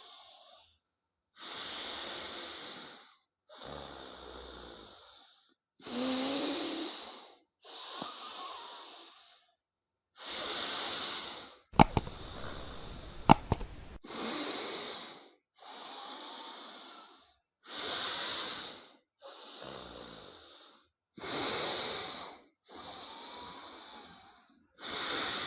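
Forceful alternate-nostril breathing (anulom vilom pranayama), loud deliberate breaths drawn in and pushed out through one nostril at a time to clear the nasal passages. About a dozen breaths, roughly one every two seconds, alternate louder and softer. A few sharp clicks come near the middle.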